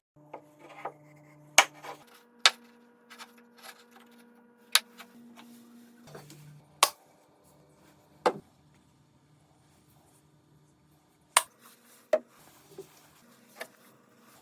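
Small handmade wooden boxes being handled: about seven sharp wooden knocks and clicks, irregularly spaced, with lighter ticks and rubbing between them.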